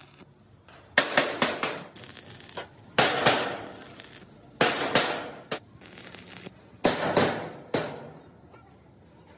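Hammer blows on a steel floor sheet, in about four groups of two or three strikes, each ringing briefly, as the sheet is struck at its stick-welded tacks.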